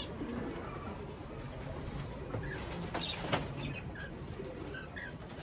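Domestic pigeons cooing softly, with a few short high chirps in the second half and a couple of light clicks about three seconds in.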